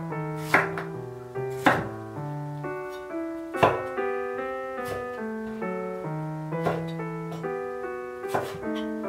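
Soft piano music with a chef's knife cutting through peeled tomatoes onto a wooden cutting board: about five crisp knocks of the blade meeting the board, spaced irregularly.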